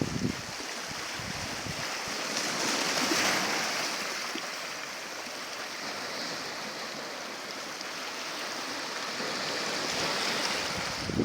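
Sea waves washing onto the shore: a steady hiss that swells about three seconds in and again near the end.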